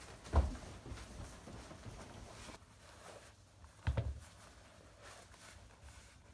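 Shoes being taken off on a carpeted floor: two dull thumps, one just after the start and one about four seconds in, with faint rustling between.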